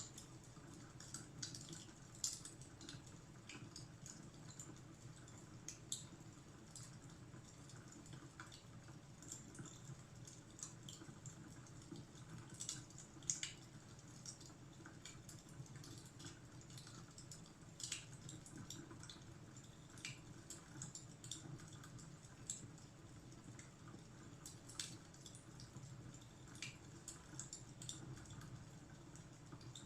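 Fire crackling in a fireplace: faint, irregular pops and snaps over a low, steady rumble.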